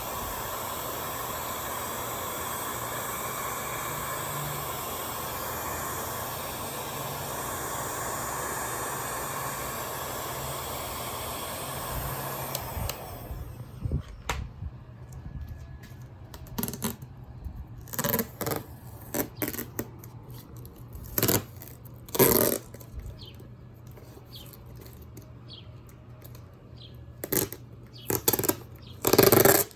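Heat gun blowing steadily, warming old decals to loosen them; it shuts off about 13 seconds in. Scattered short tearing and crinkling sounds follow as the softened decals are peeled off the ATV's plastic body panels.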